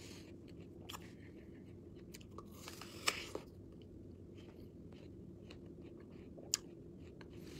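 A person biting and chewing crunchy food, with scattered small crunches, a louder crunch about three seconds in and a sharp click near the end.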